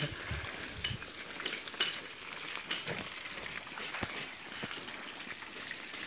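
Water from a hose jet spraying and pattering onto a new brick wall as a steady hiss: the fresh brickwork being watered to cure it.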